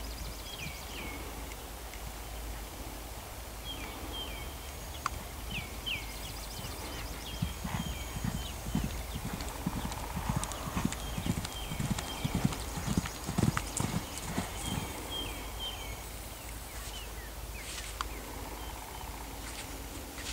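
Hoofbeats of a Dutch Harness Horse mare trotting and cantering loose on sand footing: a quick run of dull thuds, loudest through the middle of the stretch.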